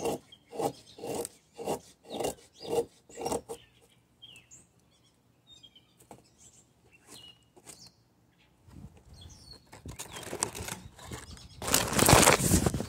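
Knife blade shaving curls off a soft pine stick in quick repeated strokes, about two a second, stopping after about three and a half seconds. Near the end, a loud rubbing rustle as a hand covers and handles the camera.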